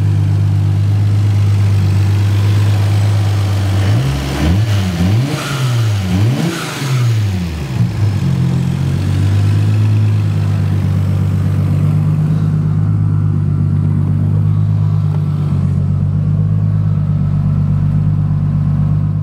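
Mk4 Toyota Supra's single-turbo straight-six idling steadily, then blipped several times in quick succession, each rev rising and falling, from about four to eight seconds in before settling back to idle.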